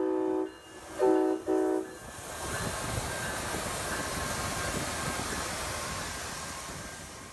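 Locomotive air horn sounding a chord: a held blast cuts off about half a second in, followed by two short blasts. Then a train passes, its rushing rail noise slowly fading.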